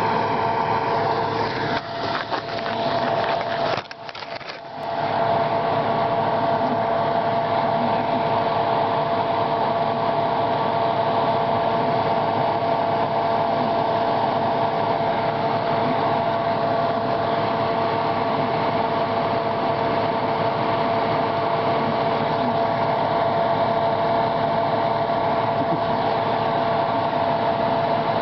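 Steady mechanical hum with a few constant tones over a hiss, dropping briefly about four seconds in.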